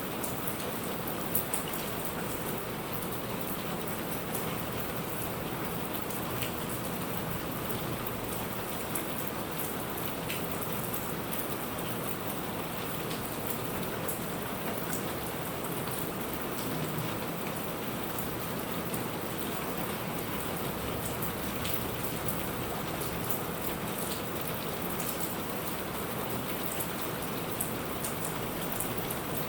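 Steady rain falling on a surface, with many short, sharp drop hits scattered through it.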